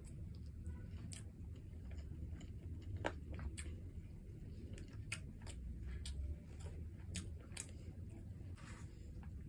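Close-miked chewing of rice and stew, with irregular wet mouth clicks and smacks, one sharper click about three seconds in.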